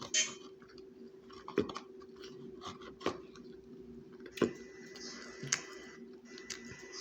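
A person chewing food, with about five sharp clicks spread through it, over a steady low hum.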